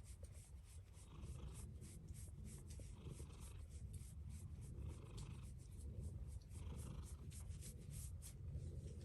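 A domestic cat purring close up, its purr swelling and easing in cycles about every one and a half to two seconds, with fine scratchy rubbing clicks throughout.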